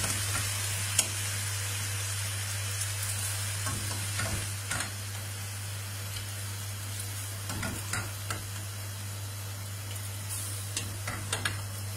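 Frying-pan sizzle as undrained rigatoni, wet with cooking water, are dropped into rendered guanciale fat, a steady hiss. A few light clicks and knocks of the wire mesh skimmer against the pot and pan, the sharpest about a second in.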